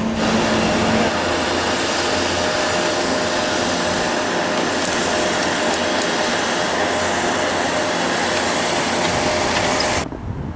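Snowmaking snow gun blasting with a steady, loud hiss, cutting off suddenly about ten seconds in.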